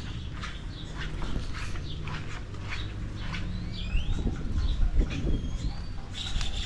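Birds chirping a few short, rising calls over a steady low rumble and scattered light knocks.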